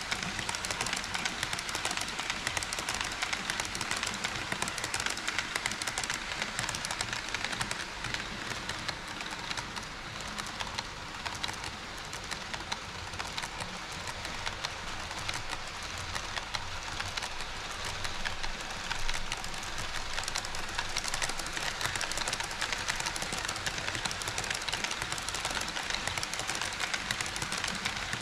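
HO-scale model train running on KATO Unitrack, its wheels making a dense, steady run of fine clicks and rattle. It eases off a little midway and builds again.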